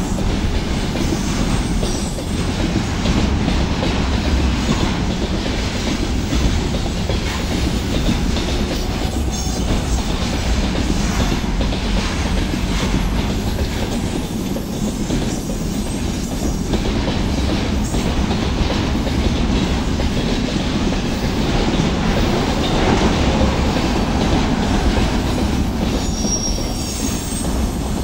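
Loaded container wagons of a freight train rolling past over a concrete railway bridge: a loud, steady rumble of steel wheels on the rails, with a brief high squeal near the end.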